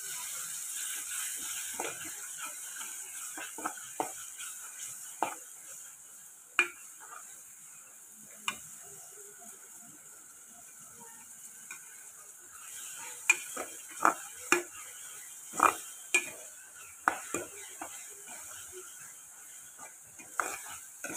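Chopped onion, garlic and ginger frying in hot oil in a metal pot, a steady sizzle, with irregular clinks and scrapes of a steel spoon stirring against the pot.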